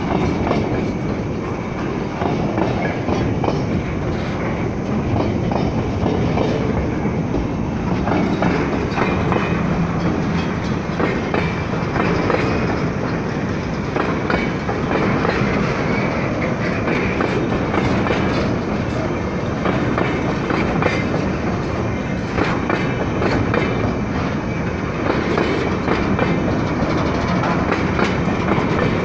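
Freight train of covered hopper wagons rolling past close by: the steady noise of steel wheels on the rails, with a continual clickety-clack of wheels crossing rail joints.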